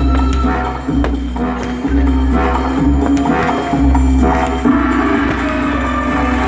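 Loud music with a deep bass line that changes note about once a second.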